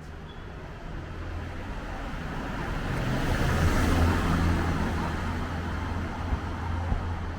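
A motor vehicle drives past, its low engine hum and tyre noise swelling to a peak about halfway through and then fading away.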